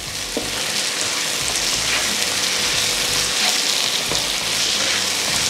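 Sliced onions and tomatoes sizzling steadily in oil in a nonstick frying pan as they are stirred with a spatula, with a couple of soft spatula knocks against the pan.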